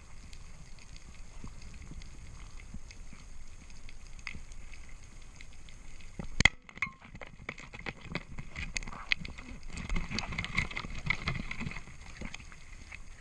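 Underwater crackling and scattered clicks, densest in the second half, with one sharp knock about six and a half seconds in.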